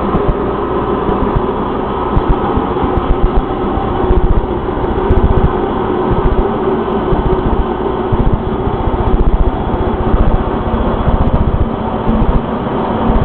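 Machine tool running steadily while machining an aluminum handlebar, with a constant mechanical hum.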